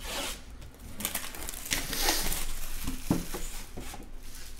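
Hands opening a sealed Panini Immaculate Baseball card box: wrap and cardboard crinkling and rustling, with a few small knocks as the box is handled.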